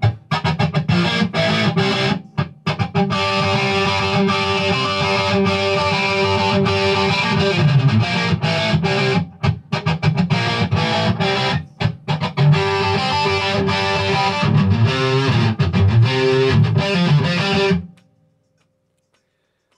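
Ibanez JEM 70V electric guitar playing distorted lead lines, with a few short breaks. It stops about eighteen seconds in.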